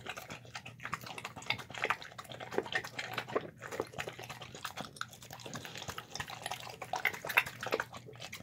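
A Shar-Pei–pit bull mix dog eating wet chicken noodles from a plastic bowl: a steady run of irregular wet smacking, slurping and chewing clicks.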